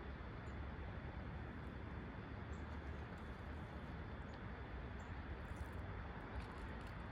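Steady wind noise on the microphone, heaviest in the low rumble, with a few faint ticks.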